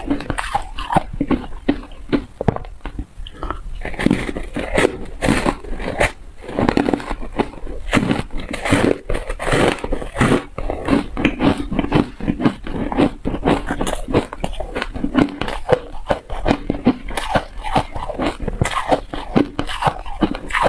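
Frozen ice bars being bitten and chewed right at a clip-on microphone: a dense, irregular run of loud cracks and crunches as the ice breaks between the teeth.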